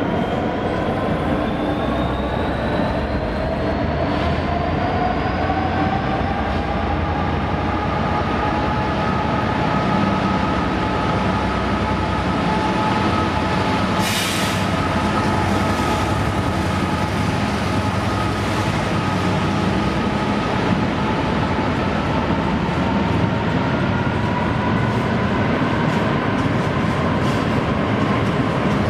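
GB Railfreight Class 66 diesel freight locomotive, with its two-stroke V12 engine, hauling a long train of covered hopper wagons past at close range over a steady rumble. The wagon wheels squeal in long drawn-out tones that slowly rise and fall in pitch. There is a short hiss about halfway through.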